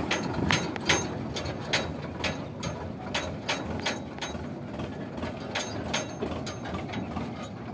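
Empty steel tractor trailer rattling and clanking over a rutted dirt track as it is towed, in irregular sharp knocks a few times a second over a low rumble from the Sonalika DI 750 tractor. The knocks grow fainter as it pulls away.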